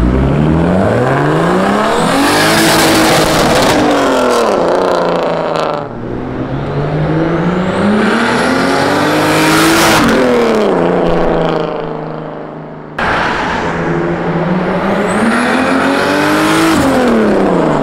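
White BMW E34 5 Series sedan accelerating hard past at full throttle, three times in a row: each time the engine note climbs steadily in pitch and then drops sharply as the car goes by.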